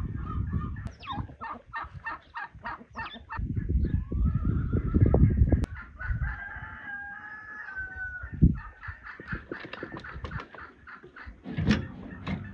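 Hens clucking in quick runs, then a rooster crowing once in a long, held call. Under the start of the crow is a low rumbling noise, and later come two dull thuds, the last as soil is tipped out of a wheelbarrow.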